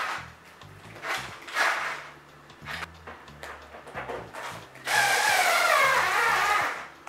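A power drill running in short bursts, then a longer run of about two seconds near the end, its whine wavering and falling in pitch.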